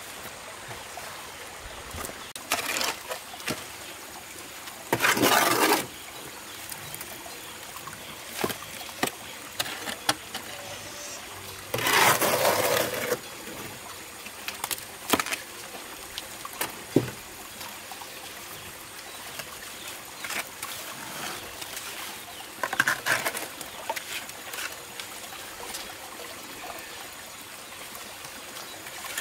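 Shallow stream trickling over stones, with occasional scrapes and knocks of hand tools working wet concrete; two louder scrapes come about five and twelve seconds in.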